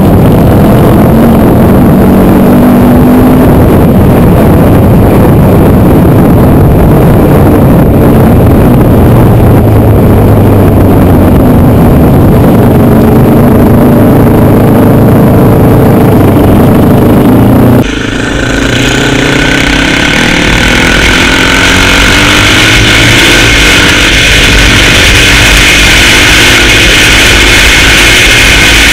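Quad (ATV) engine running under way on a gravel track, engine note rising and falling as the rider works the throttle. About 18 s in the sound cuts to a Suzuki LTZ400's onboard camera: its single-cylinder four-stroke engine under heavy wind rush.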